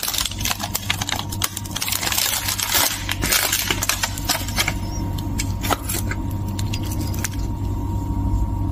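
Crisp baked puff pastry crackling and flaking as it is handled in a paper towel and set down onto a ceramic bowl, with paper rustling; dense crackles at first, then sparser clicks. A steady low hum runs underneath.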